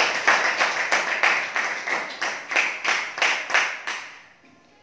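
A class of students clapping together in a steady rhythm, about three to four claps a second, dying away about four seconds in.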